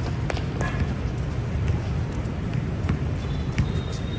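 Basketball game play: a few scattered knocks from the ball bouncing and players' footfalls over a steady low rumble, with a faint high squeak near the end.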